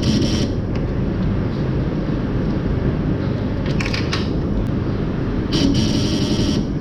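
Steady low machine rumble of milking-barn equipment, with short hissing bursts three times: at the start, about four seconds in, and a longer one about a second long near the end.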